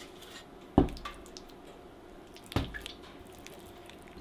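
Cinnamon-roll dough being worked on a kitchen counter: two heavy thumps on the work surface, about two seconds apart, with light clicks and ticks between them.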